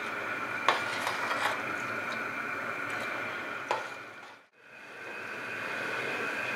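Metal spoon stirring soaked peas and grain in a stainless steel pot, clinking against the pot a few times, over a steady hiss. After a brief dropout about halfway, the pot comes to the boil with a steady bubbling hiss.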